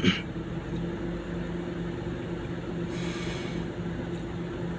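A steady low mechanical hum with a held low tone, with a sharp click at the start and a brief hiss about three seconds in.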